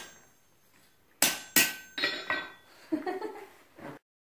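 Hand hammer striking a red-hot steel knife blank on an anvil, forging the blank. Two hard blows come about a second in, then a few lighter ones, each with a brief metallic ring from the anvil. The sound cuts off suddenly near the end.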